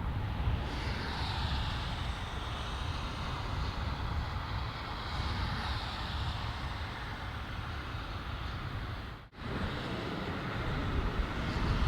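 Boeing 777-300ER's jet engines running during its landing roll, a steady rushing with a faint high whine. The sound drops out sharply for an instant about nine seconds in, then similar rushing continues.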